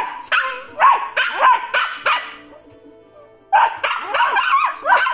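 A Shiba Inu and a Great Dane puppy squabbling: a quick run of high-pitched barks and yips, about three a second. The barks break off about two seconds in and start again about three and a half seconds in.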